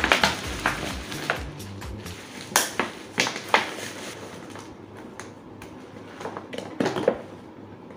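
Plastic bags and food packets crinkling and rustling as they are handled, in irregular crackles, over background music.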